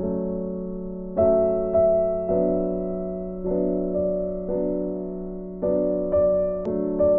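Background music: slow keyboard chords, each struck and left to fade, a new chord every half second to a second.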